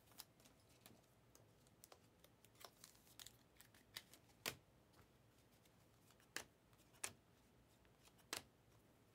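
Quiet handling of Panini Mosaic trading cards from a just-opened foil pack: the wrapper crinkling and the stiff cards clicking and snapping as they are slid and flicked through the hands. The clicks come singly, scattered across the stretch; the loudest is about four and a half seconds in, with others near four, six and a half, seven and eight and a half seconds.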